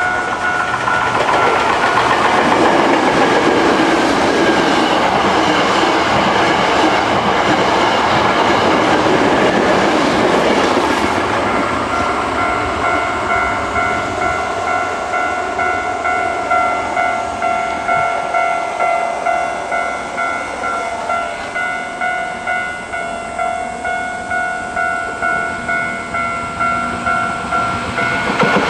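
Japanese level-crossing alarm ringing its repeated kan-kan clang as a train passes. The train's rumble and clatter cover the bell for roughly the first ten seconds, after which the bell rings on by itself in a steady beat.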